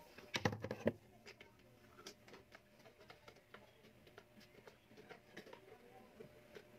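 Plastic parts of a portable clip fan being handled, clicking and tapping against each other, with a quick run of louder knocks in the first second and light scattered clicks after.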